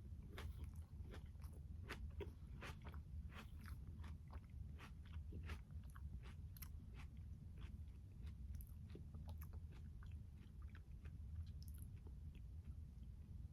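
A person chewing a mouthful of tomato, peach and basil salad close to the microphone: quick, wet clicking chews, dense at first and thinning out over the second half. A steady low hum lies underneath.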